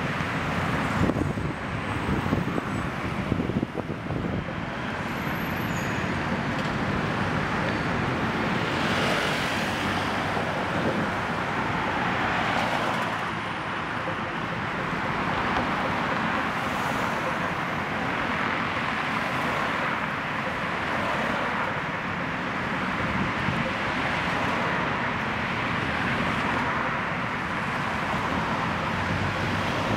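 City road traffic at a busy intersection: steady engine and tyre noise from cars and motorbikes, with vehicles swelling louder as they pass, most clearly about a third of the way through.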